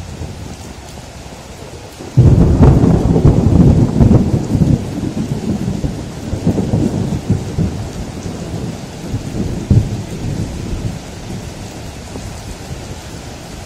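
Thunder over steady rain: a sudden loud thunderclap about two seconds in, then several seconds of rolling rumble that slowly dies away, leaving the rain.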